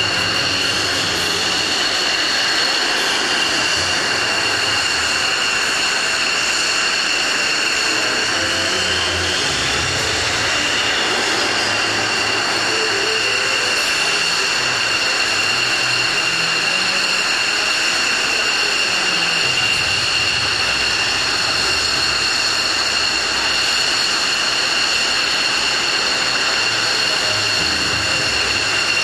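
F-16 Fighting Falcon's jet engine running at ground idle: a steady high whine over a rumble.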